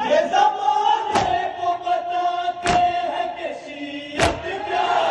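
A large crowd chanting in unison, holding one long cry. Loud sharp slaps from many hands at once, about every second and a half, keep time with it.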